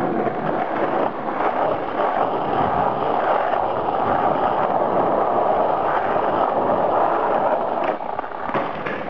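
Skateboard wheels rolling over pavement, a steady rumble that eases off about a second before the end, followed by a couple of sharp clacks.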